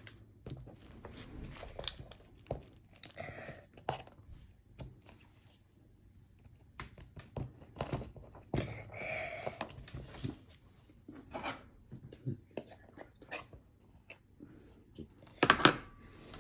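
Kitchen handling sounds: irregular rustling and crinkling with light clicks and knocks of utensils and packaging, and one louder clatter near the end.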